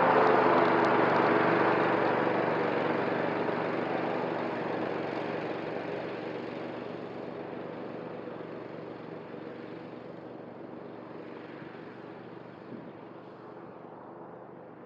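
Cub Cadet ZTS1 zero-turn riding mower running steadily as it mows, its sound fading smoothly as it drives away.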